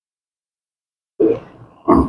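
Complete silence, then a little over a second in two short vocal sounds from a person, about two-thirds of a second apart.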